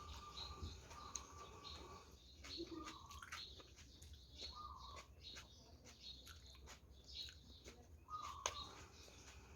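Faint chewing and mouth sounds of someone eating, with scattered short clicks. Over them a bird gives several short, steady, flat-pitched calls.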